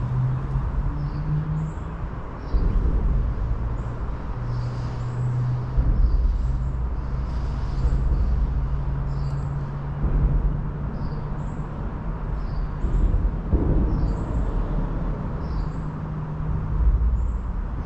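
Outdoor ambience of a low, steady hum from distant road traffic, drifting slowly in pitch over a low rumble that swells and fades. Short high chirps sound about once a second.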